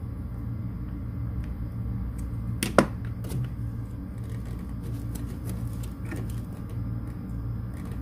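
A jumper wire with a clip being handled, making small clicks and one sharp click a little under three seconds in, over a steady low hum.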